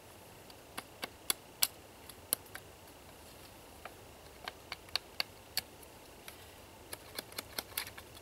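Small dry wooden sticks clicking and knocking lightly against each other as they are handled: sharp, irregular taps in two loose clusters, one at the start and one from the middle to near the end.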